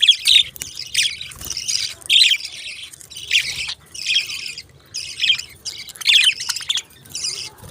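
Budgerigars chirping and chattering: quick runs of high chirps and squawks, one after another with short breaks between them.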